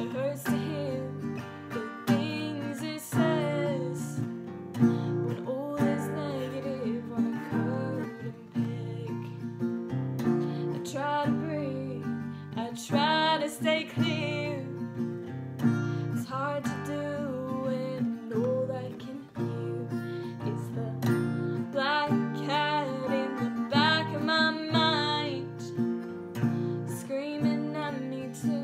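A woman singing a slow melody while strumming chords on an acoustic guitar.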